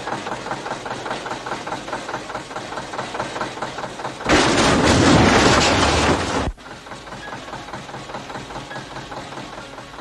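Zetor tractor's diesel engine idling with an even, regular knock. About four seconds in, a loud rushing noise covers it for about two seconds and cuts off abruptly.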